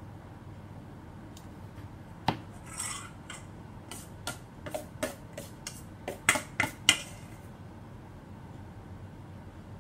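Metal kitchen utensils and dishes clattering: a sharp clack about two seconds in, then a string of clinks and knocks over the next few seconds, loudest near the middle, then stopping.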